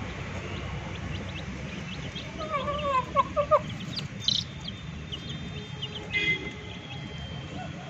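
Chicks peeping continually with short, high, downward-sliding cheeps, while an adult chicken gives a quick run of four or five clucks about two and a half seconds in. A couple of brief, sharper squawks come near the middle and about six seconds in.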